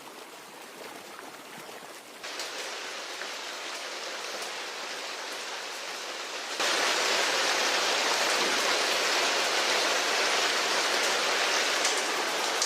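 Heavy rain falling steadily, growing louder in two sudden steps, about two seconds in and again near the seven-second mark.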